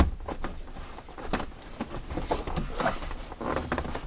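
Speaker grille being worked back onto a Jeep door panel by hand, a grille that is hard to seat. A sharp knock at the start, then irregular clicks, taps and scraping as it is pressed into place.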